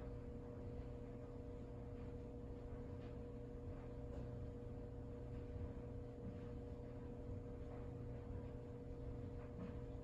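Quiet room tone with a faint, steady hum, one constant tone held throughout, and no distinct events.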